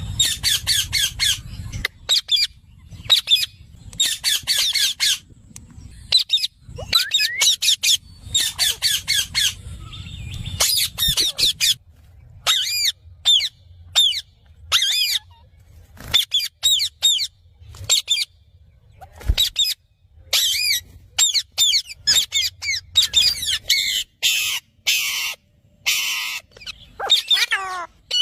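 Parrots calling: rapid runs of short, warbling chirps, with a few harsher screeches near the end.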